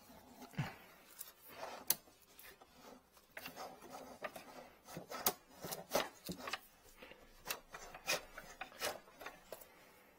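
Drain inspection camera's push cable being fed by hand into a blocked sink drain: irregular rubbing, scraping and sharp clicks as the cable slides along.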